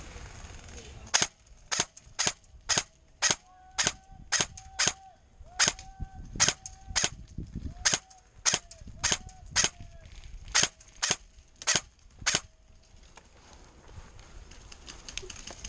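Airsoft gun firing single shots, about two sharp cracks a second in irregular runs for around eleven seconds, then stopping.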